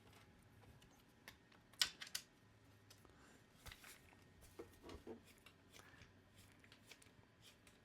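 Faint, sparse metal clicks and taps of an Allen wrench working the bolts out of a mount handle, with quiet stretches between them.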